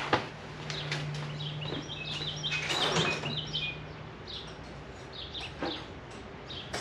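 Birds chirping in short repeated calls, with a sharp click right at the start and a low steady hum through the first half.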